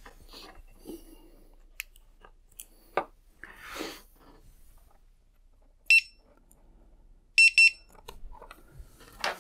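Electronic beeper on freshly powered flight electronics: one short high beep about six seconds in, then two quick beeps of the same pitch a second and a half later, the power-up signal as the devices boot. Before that come a few light clicks of power connectors being plugged in.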